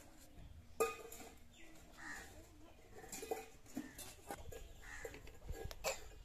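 Quiet food preparation by hand: a few sharp clicks of a knife against a steel bowl while mushrooms and a brinjal are cut and torn, with occasional bird calls in the background.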